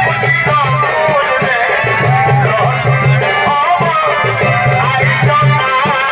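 Chhau dance folk music: a high, wavering, gliding melody over a steady low drum pulse and rapid drum strikes.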